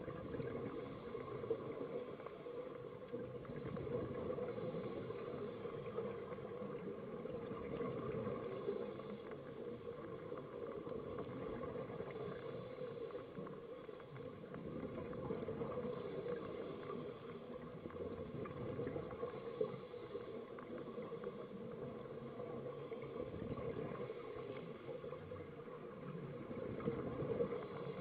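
Steady underwater ambience heard through a dive camera's housing: an even, murky noise with a low hum in it and no distinct events.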